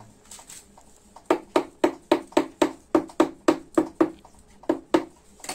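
A mason's trowel tapping a ceramic wall tile in a quick run of about a dozen knocks, roughly four a second, with a short pause near the end, bedding the tile into its mortar.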